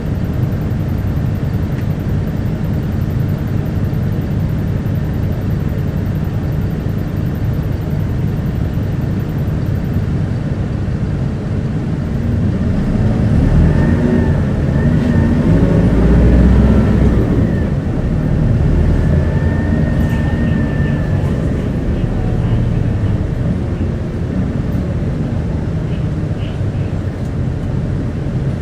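Interior running sound of an Isuzu Erga QKG-KV290N1 city bus: a steady diesel engine and road rumble. It grows louder, with the engine note rising and falling, for several seconds around the middle. A faint high whine comes in briefly twice.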